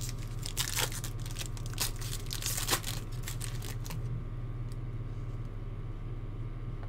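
Foil wrapper of a trading card pack being torn open and crinkled, a dense run of crackles for about four seconds, then only a few faint clicks as the cards come out.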